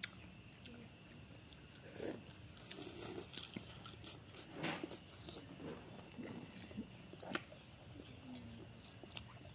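Domestic cat chewing shrimp, with faint, irregular crunches and clicks as it bites through the shell.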